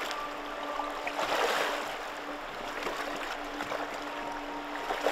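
River current running around a person wading across in rubber hip boots, with the swish and splash of legs pushing through the water about a second in and again near the end.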